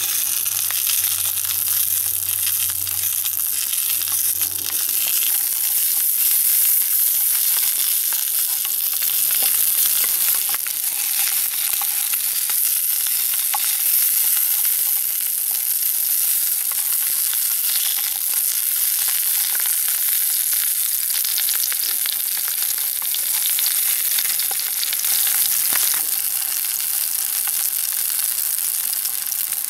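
Sausages and black pudding sizzling in hot fat in a frying pan: a steady hiss with scattered small pops.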